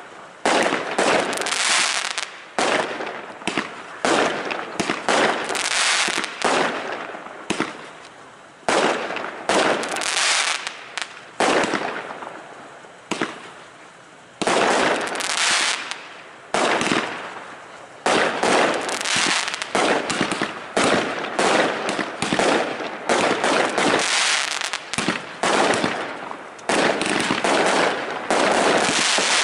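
Aerial fireworks bursting overhead in a rapid series of sharp bangs, each trailing off as it fades, with a brief lull about halfway through.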